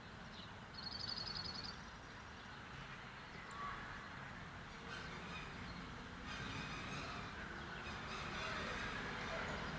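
A man snoring faintly in his sleep, with slow rasping breaths that grow louder from about six seconds in. A brief high, rapid trill sounds about a second in.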